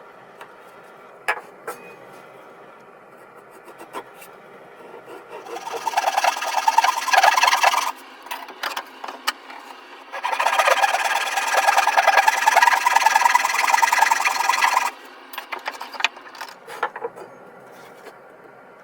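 Wood being abraded by hand, rapid rubbing strokes in two bouts, the first about six seconds in for two seconds, the second about ten seconds in for five seconds. A few light knocks fall before and between them.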